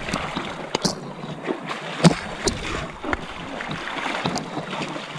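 Muddy river water splashing and sloshing around elephants being bathed, with a string of sharp splashes, the loudest about two seconds in.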